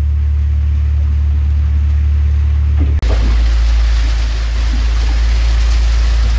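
Rain pelting the boat's pilothouse roof and windows in a night storm, a dense hiss over a heavy low rumble of wind, which starts after a brief cut about halfway through. Before the cut there is only a steady low rumble.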